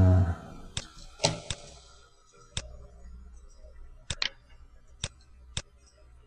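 Computer mouse buttons clicking: about eight sharp single clicks spread over several seconds, a few coming in quick pairs.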